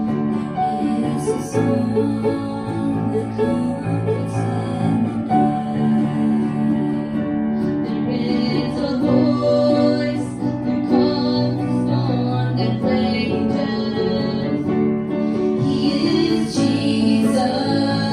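Two girls and a woman singing a worship song over instrumental accompaniment.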